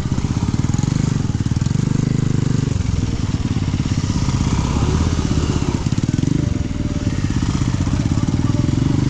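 Motorcycle engine running while riding, with a rushing noise over it; the engine note drops for a few seconds in the middle, then climbs again.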